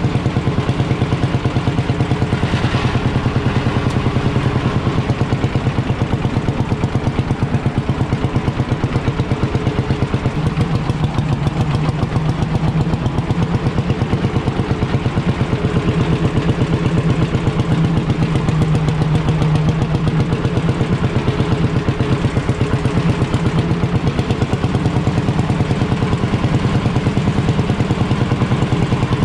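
Ursus C45 tractor's single-cylinder two-stroke hot-bulb engine running steadily under way, a rapid even beat of firing strokes, heard from the driver's seat.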